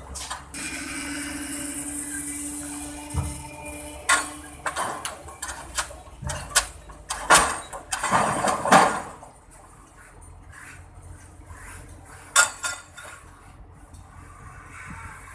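Steady machine hiss with a held hum, then a run of irregular sharp metallic clanks and knocks through the middle, with a couple more knocks near the end.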